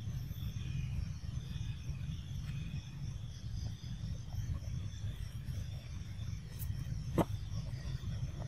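Outdoor ambience: faint steady insect buzzing over a low rumble, with one sharp click about seven seconds in.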